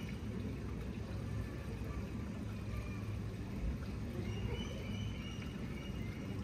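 Outdoor ambience: a steady low rumble with faint, scattered distant voices.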